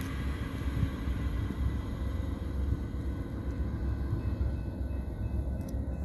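Steady low diesel rumble of the Amtrak California Zephyr train.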